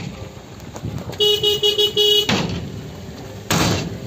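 Car horn honking in a quick series of short toots, followed near the end by a loud bang.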